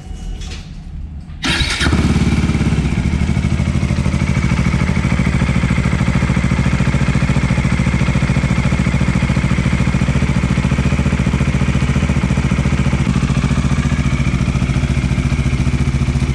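Bajaj Dominar 400's single-cylinder engine started, catching about a second and a half in, then idling steadily; it is shut off right at the end. It is being run briefly after fresh oil has been put in, so the oil circulates.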